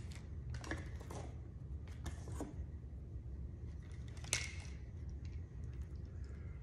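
Plastic fuel pump parts and kit packaging being handled on a tabletop: a few light rustles, then a sharper plastic click about four seconds in as the pump housing assembly is picked up and set down. A steady low hum runs underneath.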